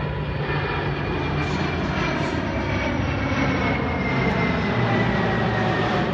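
A Lockheed C-5M Super Galaxy's four turbofan engines in a low flyover. A broad, steady engine noise grows slightly louder, and a high whine slides slowly down in pitch as the jet passes.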